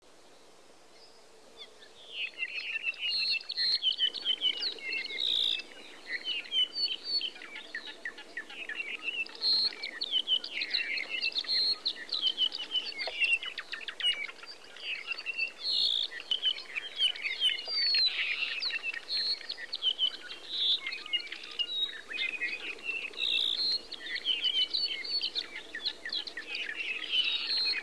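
Many birds chirping and singing at once, a dense run of quick overlapping high chirps and short whistled glides that starts about two seconds in.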